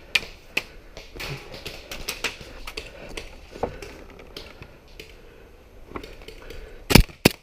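Irregular light taps and clicks as the player moves among wooden barricades, then near the end two sharp, loud shots from an airsoft pistol, about a third of a second apart.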